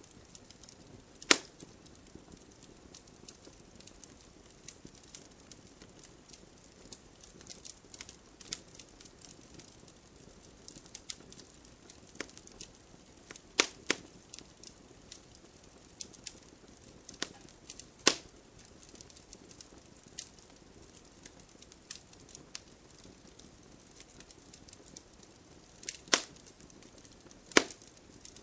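Wood bonfire crackling with scattered small snaps and a handful of loud, sharp pops, over a soft steady hiss of falling rain.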